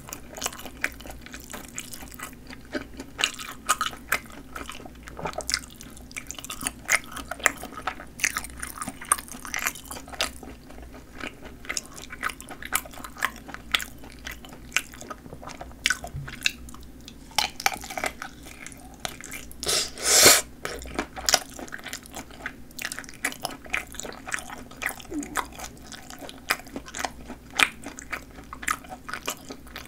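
Close-miked chewing and biting of skin-on sausages, with snappy casings giving wet clicks and crunches at an irregular pace. One louder, longer bite comes about two-thirds of the way through.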